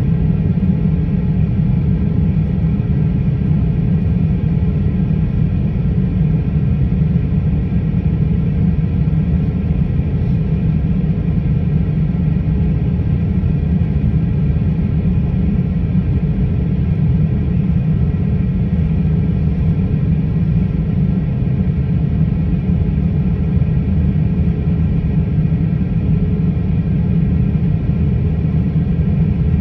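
Airliner cabin noise from a window seat over the wing while the jet taxis on the ground, engines at idle: a steady low rumble with faint steady hums above it.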